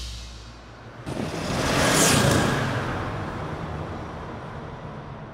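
The intro music cuts off, then a title-card whoosh sound effect swells about a second in, peaks around two seconds in and fades away slowly, with a low rumble beneath.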